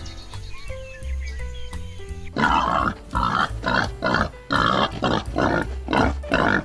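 Background music with held notes, then, a little over two seconds in, an animal breaks in with a loud run of short, harsh calls, a few a second.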